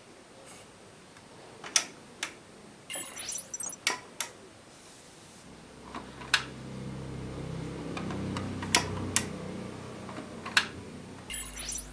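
Aiwa NSX-S52 hi-fi system being operated: a series of sharp mechanical clicks, two short rising whirs, and a low motor whir in the middle. A steady low hum sets in near the end.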